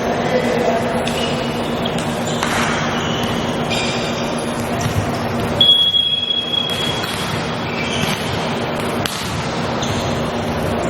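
Indoor volleyball match sound: steady crowd noise with scattered short high squeaks, typical of sneakers on the court, and a sharp hit about halfway through.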